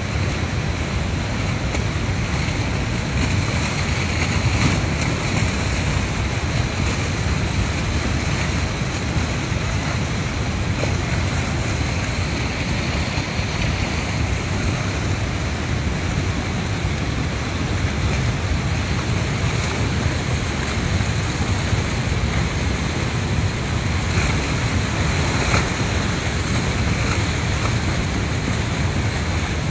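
Steady rushing of a muddy flash-flood torrent.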